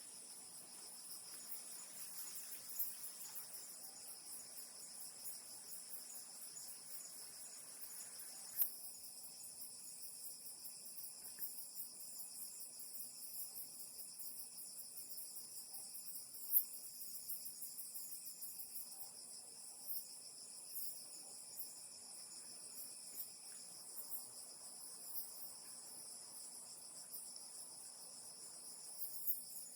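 Night insect chorus: crickets trilling steadily in several high-pitched bands. A lower trill joins about a third of the way in, and a few sharp clicks stand out.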